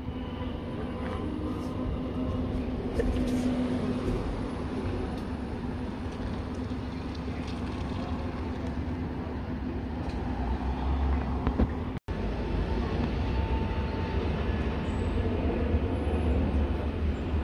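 Buses running at a bus station: a steady engine rumble with traffic noise, growing heavier about ten seconds in. The sound drops out for an instant about twelve seconds in.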